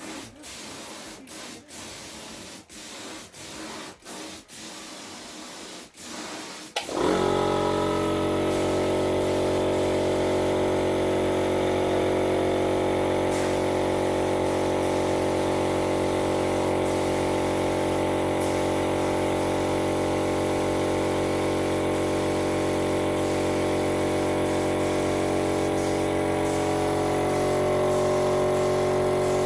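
Air spray gun hissing in short strokes as primer is sprayed. About seven seconds in, a motor starts suddenly, typical of an air compressor kicking in, and runs steadily with an even, many-toned hum.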